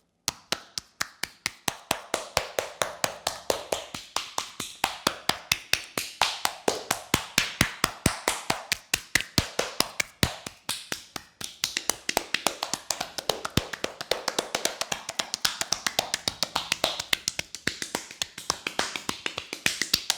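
Hands slapping rapidly and rhythmically on a person's body in percussive tapotement massage, several strikes a second. It starts suddenly just after the beginning and keeps an even, unbroken beat.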